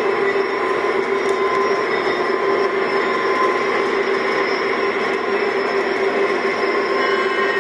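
Simulated diesel engine sound from the Legacy RailSounds of two lashed-up Lionel O-scale GE AC6000CW model locomotives, running steadily together with the noise of the model train rolling on three-rail track.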